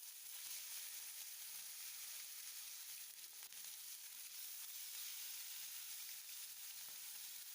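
Chicken pieces sizzling steadily in hot mustard oil in a frying pan: a soft, even frying hiss.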